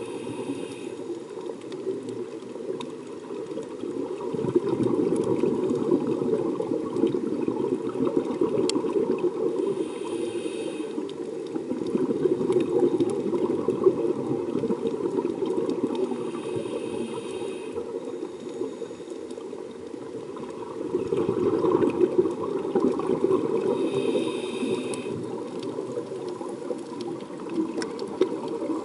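Scuba diver's regulator breathing heard underwater: exhaled bubbles rush out in swells every several seconds, with fainter regulator hiss between them.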